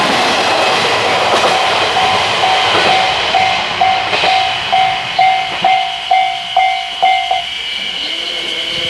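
A train passing a level crossing, its rumble and wheel clatter fading after about three seconds. The crossing's warning bell then stands out, dinging about twice a second, until the loud dinging stops about seven seconds in while fainter, higher dings carry on.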